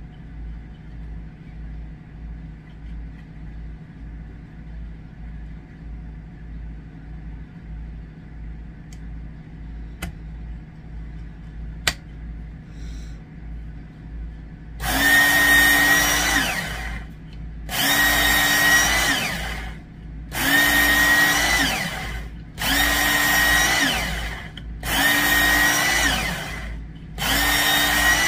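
Work Sharp Knife and Tool Sharpener's electric belt motor run in six short bursts of about two seconds each, starting about halfway through, one burst for each pass of the knife blade through the angle guide, honing the edge on the finer belt. Each burst is a steady whine that drops in pitch as the motor is let go and winds down. Before the bursts there is only a faint low hum and a couple of small clicks.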